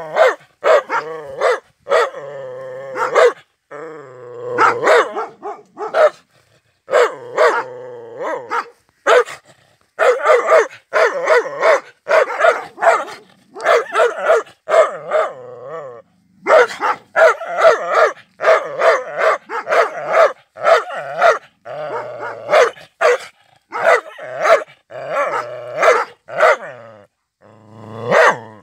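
Dog barking angrily in rapid volleys, mixed with growling, with a few short breaks between volleys.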